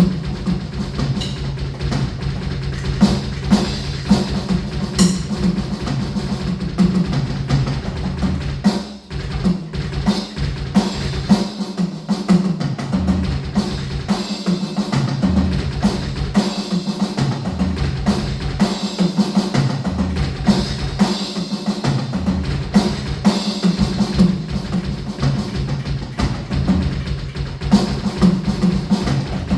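Electronic drum kit being played with a double bass pedal. There is a dense, steady run of bass drum strokes, with snare and cymbal hits over it and a few short breaks in the kick pattern.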